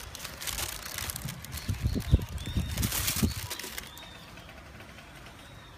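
Handling noise as a leather high-top sneaker is lifted from its box: rustling of tissue paper and soft bumps, settling down about four seconds in. Faint bird chirps sound in the background.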